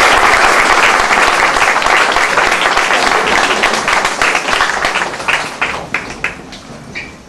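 Audience applauding, loud at first and then thinning out to a few scattered claps near the end.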